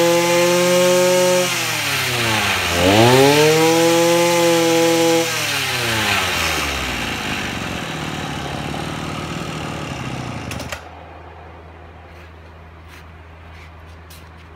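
Echo 26 brush cutter's small two-stroke engine revving high, dropping back, revved up once more, then winding down to idle and cutting out about eleven seconds in. A faint low hum and a few light clicks follow.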